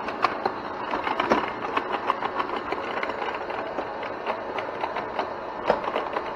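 Electronic Arcade Pinball tabletop toy in play: a steady buzz from its vibrating bumpers under rapid plastic clicks and clacks of the flippers and the metal ball striking the bumpers.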